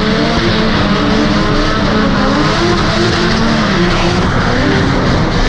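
Volvo drift car's engine revving under throttle through a slide, its note rising and falling, heard from inside the cabin together with heavy road and wind noise.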